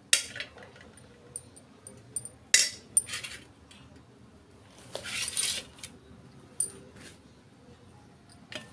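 Stainless steel spoon and dishes clinking and scraping while rice and curry are served onto a steel plate: a few sharp clinks and a longer scrape about five seconds in.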